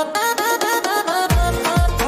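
Instrumental dance music with a bright, repeating stepped melody. About two-thirds of the way through, a deep kick drum and bass come in, at a little over two beats a second.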